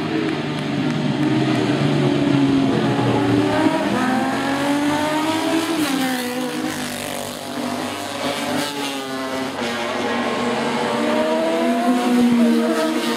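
Classic racing motorcycles passing at speed. Their engines rev up in rising sweeps, and the pitch drops sharply as a bike goes by about six seconds in. Another rising sweep comes near the end as more bikes approach.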